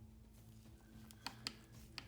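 Faint steady low hum with two light clicks about a second in and another near the end.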